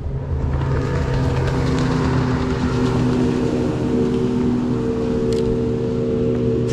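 Bass boat's outboard motor running steadily as the boat passes by, swelling over the first couple of seconds and then holding.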